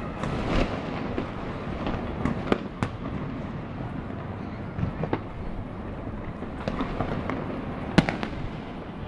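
Fireworks going off across a city: scattered irregular bangs of varying distance over steady background noise, with the loudest, sharpest bang near the end as a shell bursts overhead.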